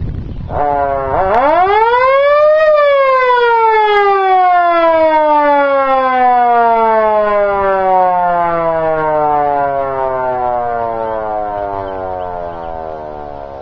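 Freshly restored Model D electric siren winding up: after a brief false start its pitch rises steeply to a peak within about two seconds, then the wail falls slowly and steadily as the rotor coasts down, growing quieter toward the end.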